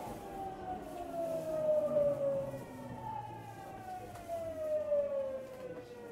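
Tokyu 9000 series train's GTO VVVF inverter whining as the train slows. The whine falls in pitch twice, jumping back up about halfway through, over a low running rumble.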